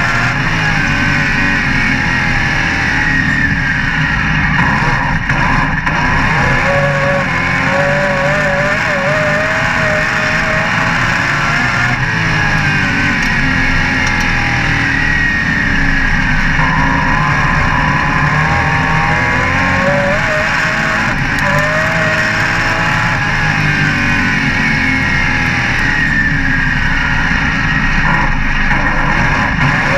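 Race car engine running hard, heard from inside the car on a dirt oval; its pitch climbs and drops again and again as the throttle opens and closes through the laps.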